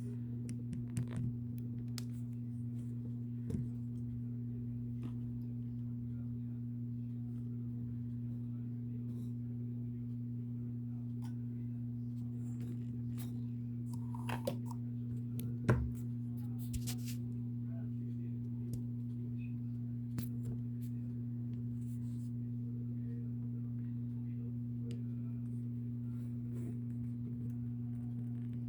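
A steady low hum with two pitches, one deep and one an octave above it. Scattered faint clicks and rustles sit over it, with a sharper knock about sixteen seconds in.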